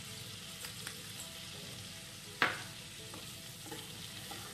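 Flour being stirred into melted butter in a nonstick pan with a wooden spatula, the start of a roux: a low, steady sizzle with light stirring. One sharp knock comes about halfway through.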